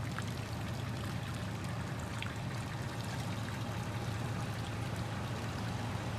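Tow vehicle's engine running at a steady low hum as it backs the boat trailer down the launch ramp, over a steady watery hiss.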